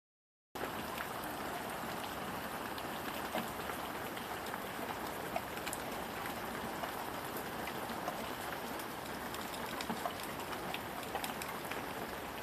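Steady rain falling, a continuous hiss with many separate drops ticking close by; it starts abruptly about half a second in.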